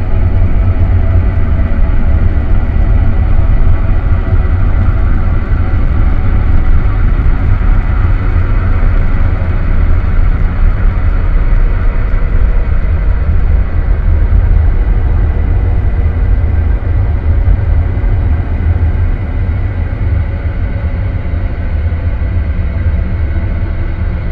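Experimental ambient noise music: a loud, steady deep rumble with several sustained drone tones layered above it, slowly shifting and easing a little near the end.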